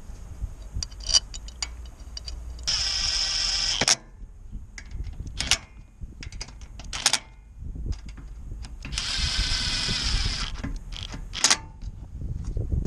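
A 24V cordless drill-driver with a socket runs in two short bursts, about 3 and 9 seconds in, driving bolts into an engine cover. Sharp metallic clicks and clinks of the socket and bolts come between the bursts.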